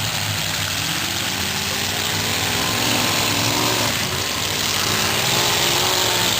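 Demolition derby car engines running over a steady rumble, with engine pitch rising and falling as one revs, about halfway through.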